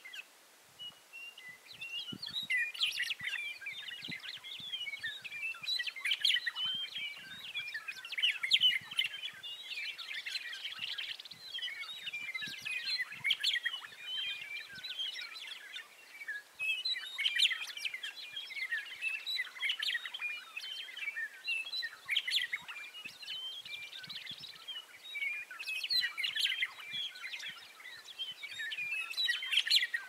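Many birds chirping and chattering at once in a dense, continuous chorus of short notes, with brief lulls about a second in and around sixteen seconds in.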